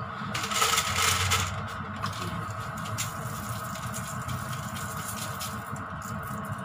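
Salt shaken from a cardboard sea-salt canister, pattering onto Brussels sprouts on a parchment-lined baking tray: a dense hiss of grains in the first second or so, then a few light ticks, over a steady background hum.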